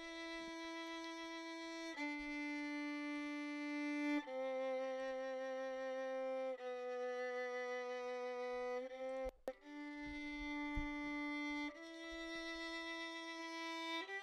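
Solo violin track playing a slow line of long bowed notes, each held about two seconds, with a short break about nine seconds in. The track runs through a CLA-76 compressor set to its slowest attack and a 4:1 ratio, which only tames the peaks and adds body without touching the violin's dynamics.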